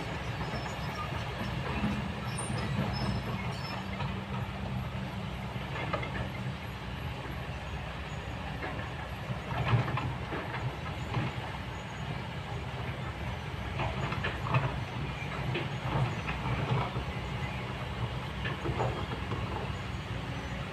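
Kobelco long-reach excavator's diesel engine running steadily, with scattered clanks and scrapes of the bucket working among rocks.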